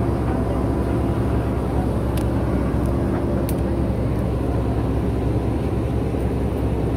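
JCB 3DX backhoe loader's diesel engine running steadily as the backhoe arm digs. Two brief high ticks come near the middle.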